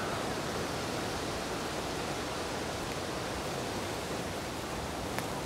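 Strong wind rushing steadily through the trees. There is a brief faint click near the end.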